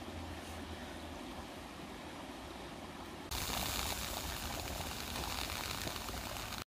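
Kelly kettle burning, a steady rushing noise; about halfway through it gets suddenly louder and brighter as the fire draws hard, with flames coming out of the top of the chimney. It cuts off abruptly at the end.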